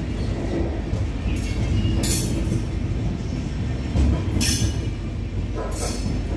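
Passenger train rolling along, heard from on board: a steady low rumble of wheels on rails, with brief high hissing squeals coming every second or two.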